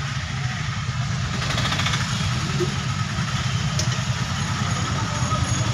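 Engine of the vehicle carrying the camera, running at low speed in street traffic: a steady low rumble heard from inside the cabin.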